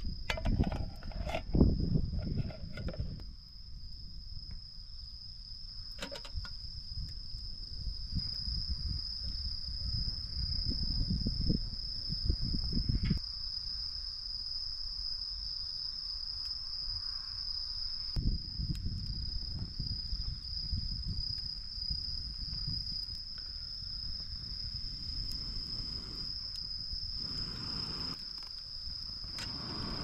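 Insects singing in one steady, unbroken high-pitched tone, over a low rumbling noise that swells and fades.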